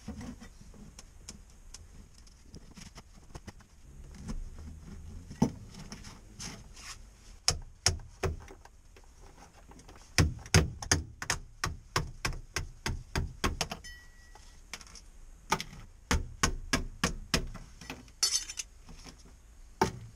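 Hammer blows on the sound-deadening pads stuck to the Subaru Impreza's steel floor pan, chipping them loose. There are a few single strikes at first, then quick runs of about three blows a second about halfway through and again later.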